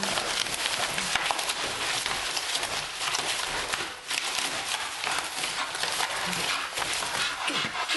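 Miniature bull terrier tearing and chewing a cardboard box: a dense, continuous crackle of ripping and crushing cardboard, easing off briefly about halfway.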